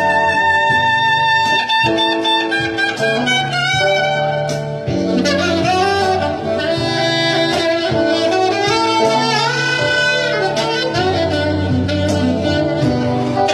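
Live band music: a saxophone plays the melody, opening on a long held note and then moving through a phrase, over electric guitar and a steady bass line.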